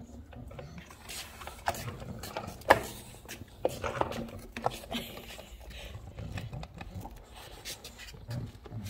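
English bulldog gnawing on a skateboard deck: irregular sharp clicks and scrapes of teeth on the board, with one louder snap about three seconds in.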